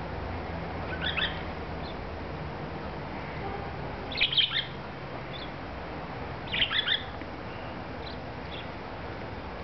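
Budgerigar giving short, high chirps in three quick clusters, about a second, four seconds and nearly seven seconds in, the middle cluster the loudest, with a few faint single chirps between.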